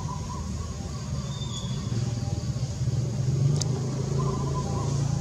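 Steady low mechanical rumble, like a running engine, with a single sharp click about three and a half seconds in.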